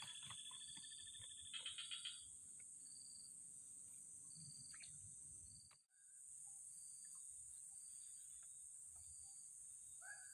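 Faint chorus of swamp insects: a steady high-pitched buzz with short chirps repeating about once a second, and a few whistled calls in the first two seconds. The sound drops out briefly near the middle.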